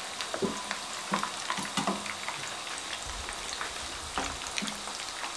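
Egg-stuffed meatballs (nargisi koftas) deep-frying in a pan of oil at medium flame: a steady sizzle with scattered small pops and clicks as wooden spatulas turn them.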